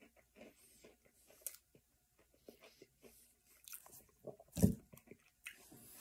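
A person chewing a mouthful of soft pancake, with faint wet mouth clicks scattered through, and one brief louder sound about four and a half seconds in.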